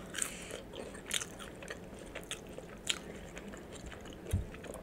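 Close-miked chewing of food with the mouth closed: irregular soft, wet mouth clicks and smacks. A soft low thud comes a little past four seconds in.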